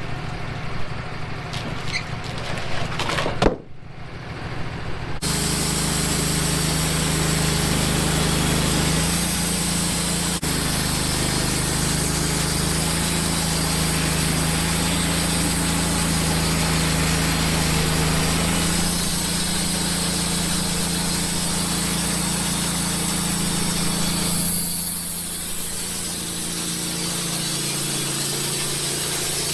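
Wood-Mizer LT15 band sawmill running with its blade cutting through a black cherry log, a steady mechanical drone. The sound breaks off briefly about four seconds in, then the steady cutting run picks up again.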